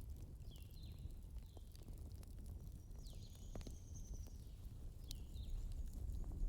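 Wood fire burning in a fireplace: a soft low rumble of the flames with a few sharp crackles and pops. A few short, high chirping notes sound over it.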